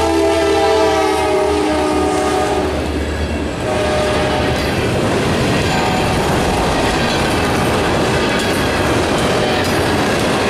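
Freight train passing close by: the locomotive horn sounds a chord of several steady notes over the rumble of the diesel engines until about three seconds in. Then the freight cars roll past with a steady clatter of wheels on rail.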